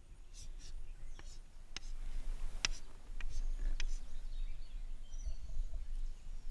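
Chalk tapping and scratching on a slate chalkboard: a handful of short sharp ticks through the first few seconds, over a low steady background rumble.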